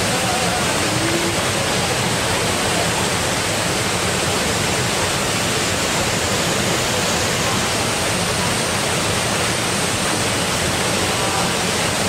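Small mountain waterfall pouring steadily into a rock plunge pool, a dense even rush of falling water heard close up.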